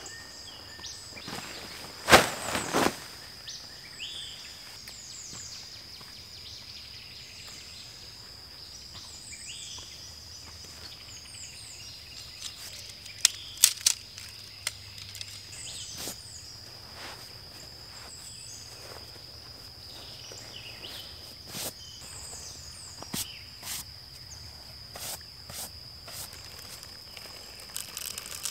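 Outdoor ambience: a steady high-pitched insect drone with birds chirping over it. A few sharp knocks and clatters stand out, the loudest about two seconds in and a quick pair a little before the halfway point.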